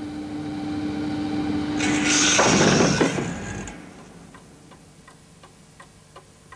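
A held low note swells into a loud rushing sound that dies away about four seconds in. Then a wall clock ticks steadily, about two to three ticks a second.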